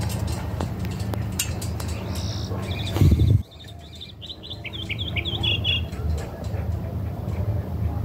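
A bird sings a quick run of short, high chirps for a couple of seconds, starting just after a brief loud thump about three seconds in. Under it runs a steady low rumble.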